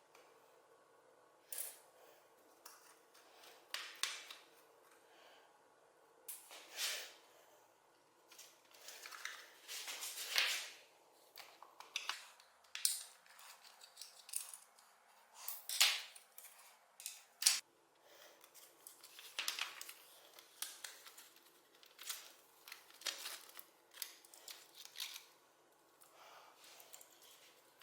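Irregular clicks and short scrapes of hands working on the parts of a mechanical keyboard, a few strokes lasting up to about a second.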